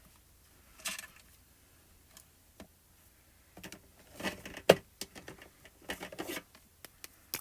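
Plastic marker pens clacking and rustling as they are picked through and handled, with a sharp click about four and a half seconds in.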